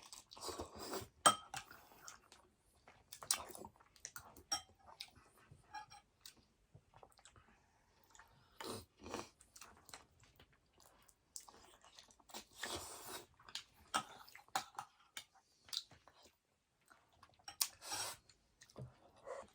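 Close-miked eating sounds: chewing and crunching in short, irregular bouts, with sharp clicks from time to time, like a spoon or fork on a dish.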